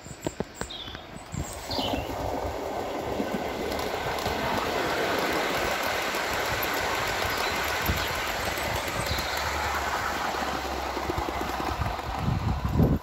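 O gauge model coal train, a Class 37 diesel hauling loaded MGR hoppers, running past on garden track: a steady rumble and rattle of wheels on rail that builds over the first two seconds. A loud low rumble comes near the end.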